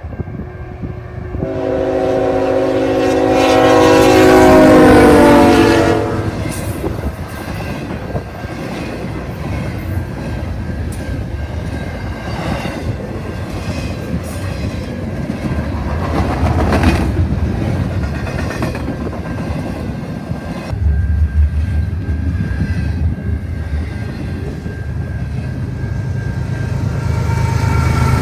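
A double-stack intermodal freight train passing close by. The lead diesel locomotive's horn chord sounds for about four seconds, starting a second or two in, and drops in pitch as it goes past. Then the container cars' wheels rumble and clatter over the rail joints. Near the end the low engine drone of a second diesel locomotive, placed in the middle of the train, comes in as it approaches.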